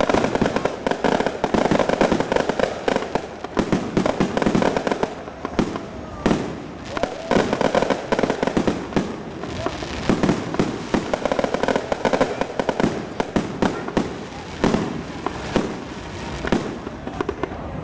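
Fireworks crackling and popping in dense rapid runs that swell and fade every second or two, with crowd voices beneath.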